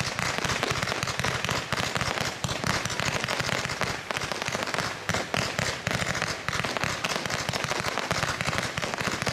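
A 130-shot Z-pattern fireworks cake firing: a rapid, unbroken stream of launch pops and bursts.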